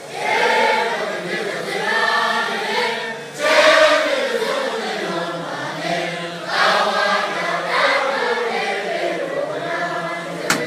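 A large crowd of Tibetan Buddhist monks singing together in unison, in phrases a second or two long.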